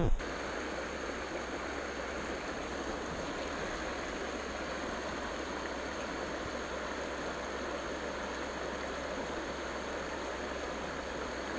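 Shallow mountain river rushing steadily over rocks and a small riffle.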